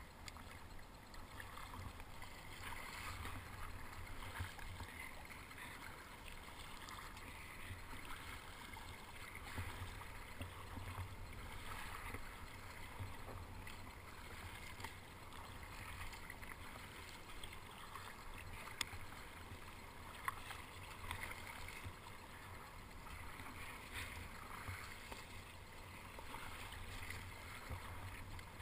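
Water splashing and sloshing against a plastic sit-on-top kayak's hull as it is paddled through choppy sea, swelling with each stroke over a steady low rumble. Two sharp clicks about two-thirds of the way through.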